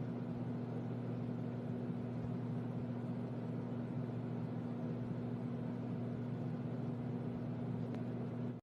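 A steady, unchanging mechanical hum with a low drone, cutting off abruptly at the end.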